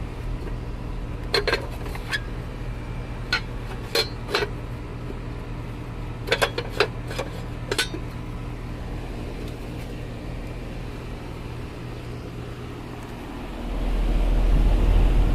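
Bryant/Carrier HVAC equipment running with a steady low hum. About ten sharp clicks come in the first half, and a louder low rumble swells up near the end.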